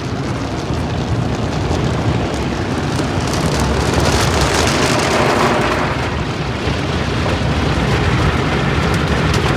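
Car wash water cascading and spraying onto a car: a loud, steady rush of water that swells around the middle.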